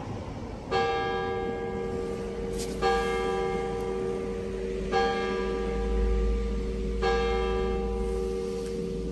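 Church tower clock bell striking the hour at noon: four single strokes at the same pitch, about two seconds apart, each left ringing on.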